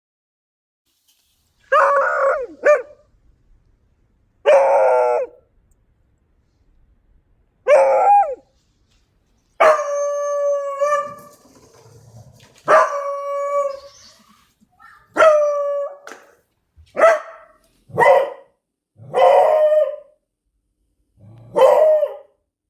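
Beagle barking and howling in about a dozen separate calls with short pauses between them. Most are short barks; two in the middle are drawn out into howls of a second or more.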